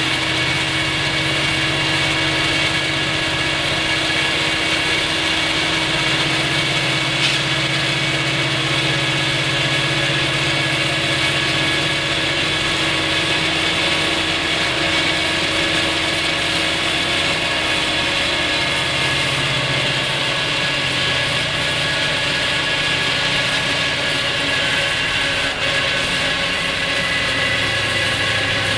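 Diesel locomotive engines idling steadily, with the pitch of their low tone shifting slightly a few times.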